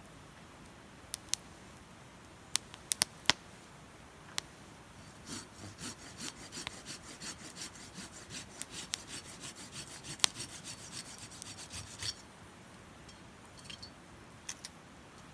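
Wood fire crackling: a few sharp pops in the first few seconds, then about seven seconds of dense, rapid crackling that stops suddenly, followed by a few scattered pops.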